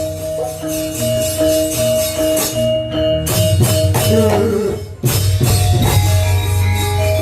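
Javanese gamelan music: metallophones playing a repeating melody over a low bass. Just before five seconds in it briefly drops away, then comes back fuller.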